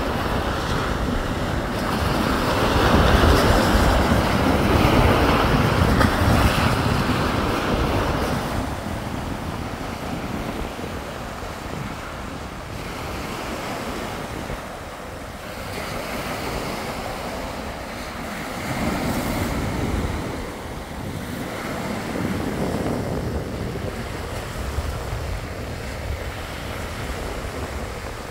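Small waves breaking and washing up over a pebble beach, the surf swelling and ebbing, with wind buffeting the microphone, strongest in the first eight seconds or so.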